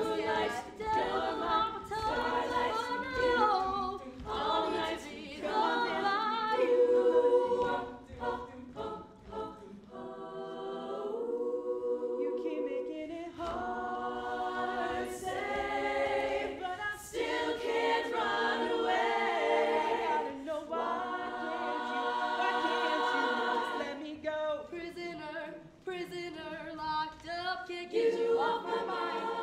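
Women's a cappella group singing a pop mashup: lead soloists over sung backing chords from the full group, no instruments. The sound drops back about ten seconds in, then the voices build up again.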